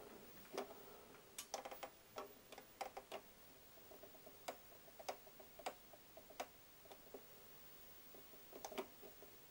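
Faint, irregular clicking of the tuning knob on a small portable CRT television being turned by hand, searching for a UHF signal.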